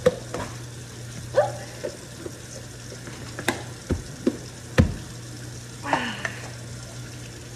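Plastic measuring cups and a tub of powdered iced tea mix being handled on a kitchen counter: a string of small clicks and knocks, the loudest just under five seconds in, over a steady low hum.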